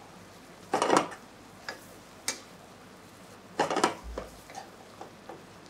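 Metal tongs clicking and scraping against a frying pan as pork medallions are moved in a cream sauce. They come in two short clattering bursts about three seconds apart, with a few single taps between and lighter ticks after.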